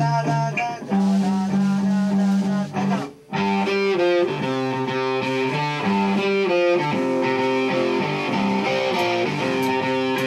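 Electric guitar playing held chords that change every half second or so, with a brief stop about three seconds in.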